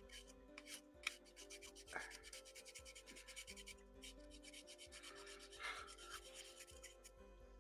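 Quick, even rubbing strokes on a small plastic scale-model part, several a second, pausing briefly about four seconds in.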